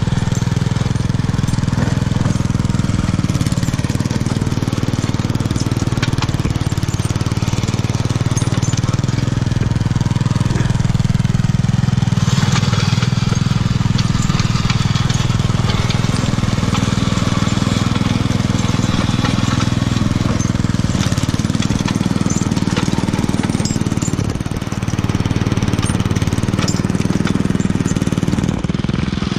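Homemade garden tractor's small engine running steadily under load through a homemade muffler, with the crunching and scraping of a drag tine ripping up packed snow.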